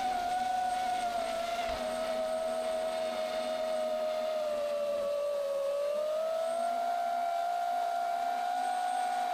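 FPV quadcopter's brushless motors whining steadily as it flies, the pitch sagging a little around the middle and then rising again with the throttle.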